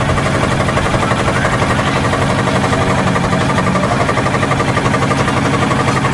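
An engine running steadily with a fast, even pulsing beat.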